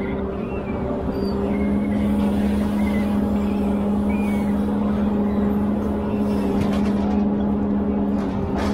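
Ponsse Elephant forwarder's diesel engine running at a steady speed with a constant hum, while the crane loads logs; one sharp knock near the end.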